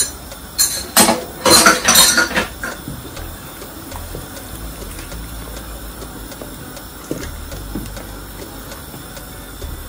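Wooden spoon stirring soup in a stainless steel pot: a burst of loud knocks and scrapes against the pot in the first few seconds, then quieter stirring through the liquid with a couple of light knocks near the end.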